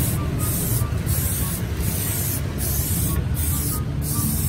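Samurai aerosol spray paint can spraying in short repeated bursts, about seven in a row, each a hiss of roughly half a second with brief pauses between.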